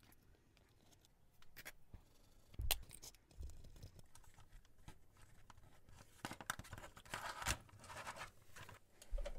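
A small screwdriver turning a self-tapping screw into the drawbar of an HO scale model locomotive, with faint scratching and clicking, a denser stretch of scraping about six to eight seconds in, and a few light knocks as the model is handled on the bench.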